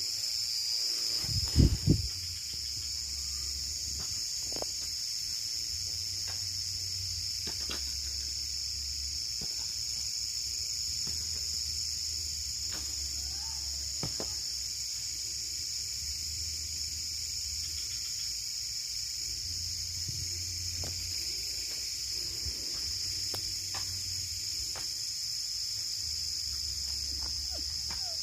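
A night insect chorus of crickets, with a steady high trill throughout. Under it, a low hum swells and fades every few seconds, the unidentified strange sound. Two loud bumps come about a second and a half in.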